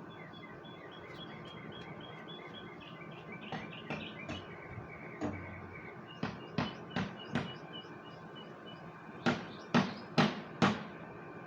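A small bird chirping in a quick, evenly repeated pattern, with sharp knocks breaking in: four in quick succession about halfway through and four louder ones near the end.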